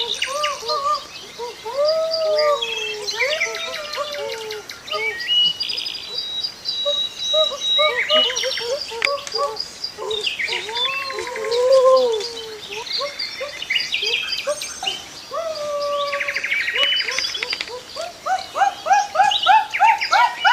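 Several birds calling and chirping, with many short arched calls overlapping and higher trills now and then.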